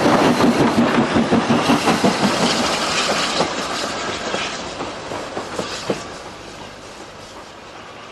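Southern Railway S15-class 4-6-0 steam locomotive No. 847 rolling past close by, its wheels clicking over the rail joints. The sound fades steadily as it draws away, with one sharp click about six seconds in.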